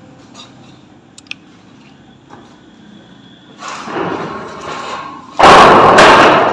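Scuffling and scraping noises, then a sudden loud crash that lasts about a second before fading: something heavy falling in an empty concrete room.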